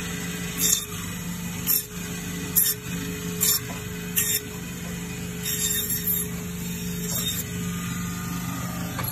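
Butcher's meat bandsaw running with a steady hum while its blade cuts through lamb rib bones, each cut a brief high-pitched sound, about once a second, with two longer cuts past the middle.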